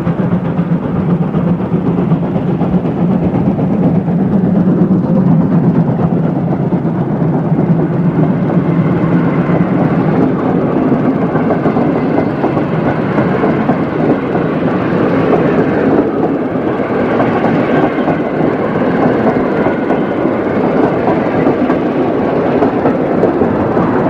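Steam locomotive hauling a passenger train out of a station, a loud, steady running sound that carries on without a break.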